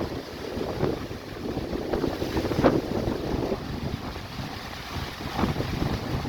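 Strong gusty wind buffeting the microphone and shaking the fly sheet of a Forclaz Trek 500 3P tent, with irregular flaps of the fabric and one louder snap about midway.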